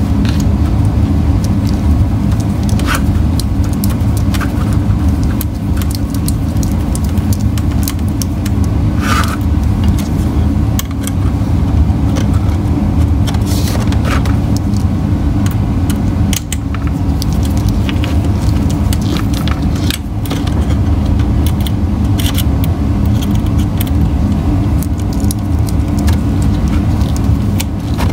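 Small screws being started and driven with a precision screwdriver into 3D-printed plastic trailer beams, with the plastic parts handled and shifted: scattered light clicks, ticks and scrapes over a steady low hum.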